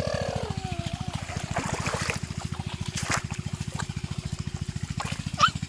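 A small engine running steadily with a fast, even low thudding of about ten beats a second, over a little trickling water and a few sharp splashes.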